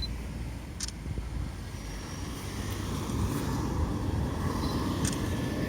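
Road traffic noise with a vehicle passing, the rumble swelling in the second half, and a couple of faint clicks.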